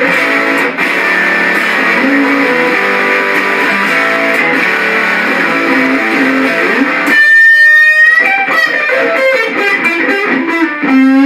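Alvarez Dana II electric guitar with its Triforce pickups in the fifth switch position, played through a Boss DS-1 distortion pedal with the gain fully up into a small 10-inch-speaker amp. Heavily distorted chord riffing comes first. About seven seconds in there is a single held high note that bends slightly upward, followed by quick picked runs.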